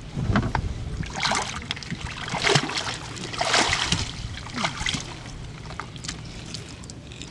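Lake water splashing and sloshing in several irregular bursts as a person climbs up out of the water onto a wooden boat, water dripping off him.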